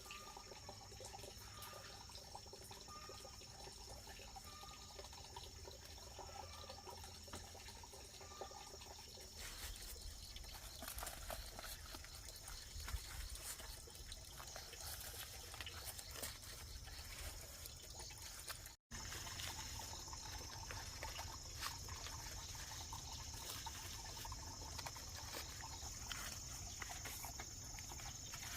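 Faint outdoor ambience with insects chirring steadily in a high band, and scattered light clicks and rustles. A short call repeats about once a second for the first eight seconds, and the sound drops out for an instant about 19 seconds in.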